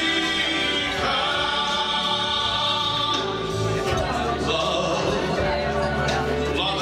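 Background music with operatic singing.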